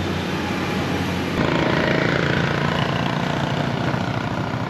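A motor vehicle engine running at a steady speed amid road noise, after about a second of a low steady hum at the start.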